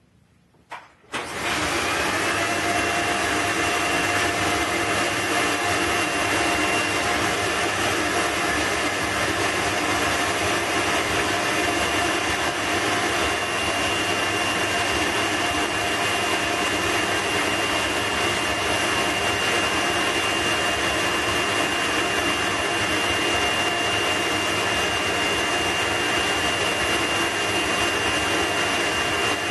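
The vacuum motor of a vacuum-forming table switches on about a second in, its whine rising to speed, then runs steadily with a high whine over loud rushing air as it draws the heated PETG sheet down over the moulds.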